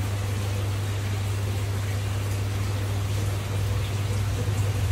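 Aquarium pump and filter running: a steady low hum with a constant wash of trickling water.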